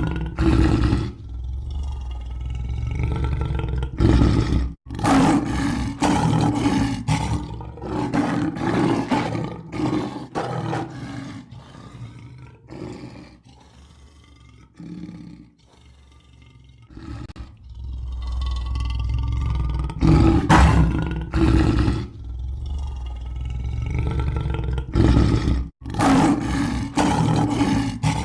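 Lion roaring: a run of long, deep roars that fade to quieter grunting about halfway through. The same roaring sequence starts again about twenty seconds in, as a looped recording.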